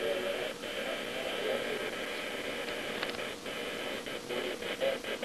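Steady room noise with faint, indistinct voices in the background.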